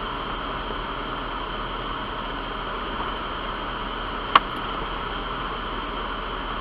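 A Jeep driving slowly along a rough gravel trail, heard through a hood-mounted camera as a steady rush of engine, tyre and wind noise. One sharp knock about four seconds in.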